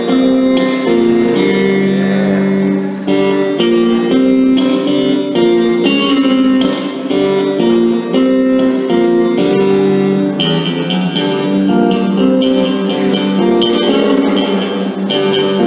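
Electric guitar played through a small combo amplifier: a melody of held, sustained notes changing steadily.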